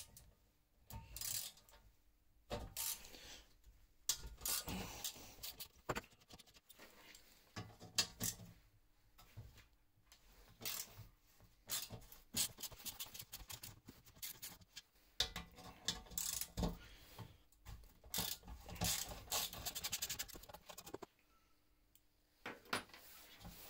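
Hand tools working the rusty fasteners of a radiator fan shroud: a screwdriver scraping and turning, with small metal parts clinking and tapping on the bench. A quick run of clicks comes about three quarters of the way through.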